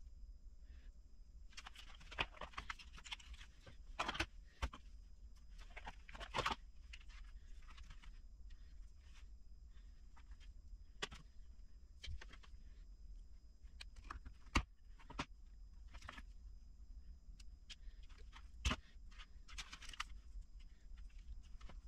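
Faint rustling and light clicking of hands handling loose electrical wire and small crimp connectors on a workbench, with a few sharp clicks and taps scattered through.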